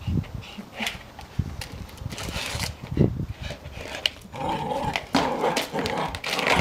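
A black plastic flower pot scraping, knocking and clattering on concrete as a border terrier puppy in a plastic cone collar grabs and drags it, with a sharp knock about 3 s in. Dog growling runs through the tussle, strongest near the end.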